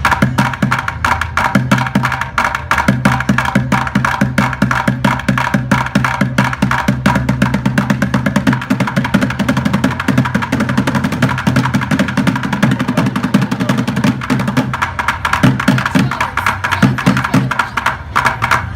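Music with fast, dense drumming: a rapid, unbroken run of sharp drum strikes over a steady pitched backing.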